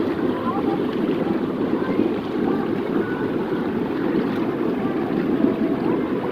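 A steady, even rushing noise, with a few faint short higher sounds now and then.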